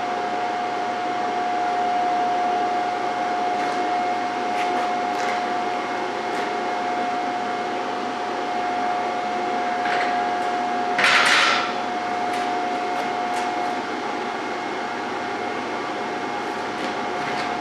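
Steady electric fan noise with a whine that stops about two-thirds of the way through, a short loud hiss about 11 seconds in, and a few light knocks.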